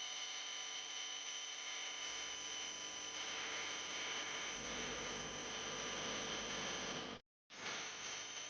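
Steady machine whir with several high, steady whines; a low rumble joins about two seconds in and grows stronger. The sound cuts out completely for a moment near the end, then resumes.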